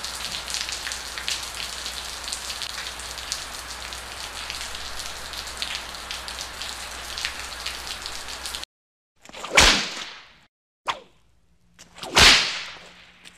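Steady rain-like patter with scattered crackles, cut off abruptly about nine seconds in; then three whip lashes, each a loud swish that fades quickly, the middle one brief.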